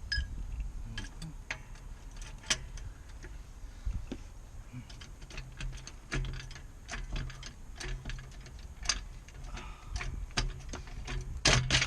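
Scattered sharp clicks and clinks of hand tools against metal, spaced unevenly, with a quick cluster of them near the end.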